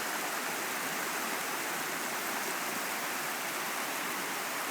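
River water rushing and splashing over stones in a steady, even rush.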